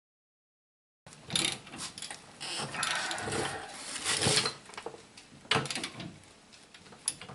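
A ratchet runs the new caliper bracket bolts into the truck's steering knuckle, starting about a second in and going in several spells of mechanical clicking and whirring.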